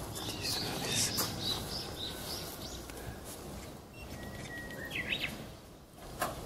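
Birds chirping over steady outdoor background noise: a cluster of short high calls in the first second and a half, then a thin held whistle and a quick run of chirps about five seconds in.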